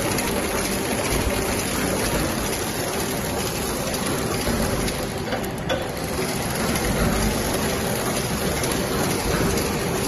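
Automatic flow-wrap packaging machine running: a steady, continuous mechanical noise with no distinct rhythm or single loud event.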